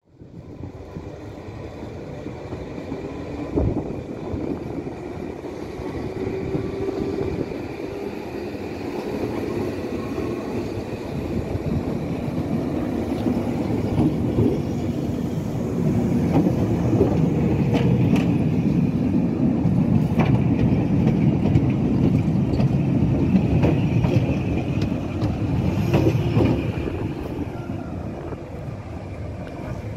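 Vintage narrow-gauge electric train rolling slowly past, its wheels rumbling and clicking over rail joints. It grows louder as the carriages pass close and fades a little near the end.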